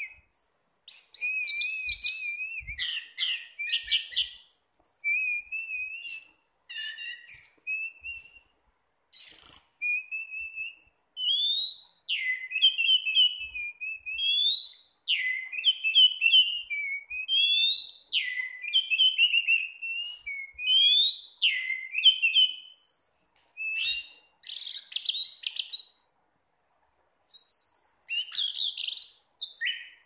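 Orange-headed thrush (anis merah) singing a long, varied song of quick warbled phrases and short whistled glides, high-pitched, with brief pauses between phrases and a gap of about a second near the end. It is singing in the relaxed 'teler' style prized by bird keepers.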